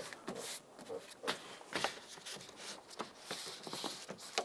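Scattered soft taps and rustles of a plastic door water shield being pressed by hand onto its adhesive.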